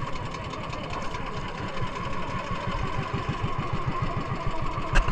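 Small engine of a motorised outrigger fishing boat running steadily under way, a fast, even chugging, with a sharp knock right at the end.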